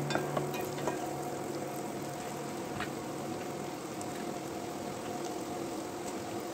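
Diced onion sizzling steadily in bubbling butter in a pot, with a few clicks of a wooden spoon against the pot in the first second.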